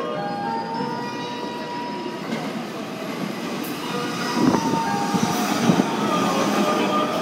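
Ueno-Tokyo Line commuter rapid electric train running through a station at speed without stopping. Its rumble builds and is loudest from about four seconds in, as the cars sweep past close by with sharp clattering thuds from the wheels.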